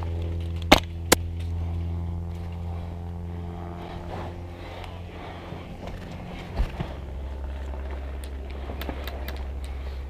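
A steady low engine-like hum that drops to a lower pitch about six and a half seconds in. Two sharp cracks come close together about a second in.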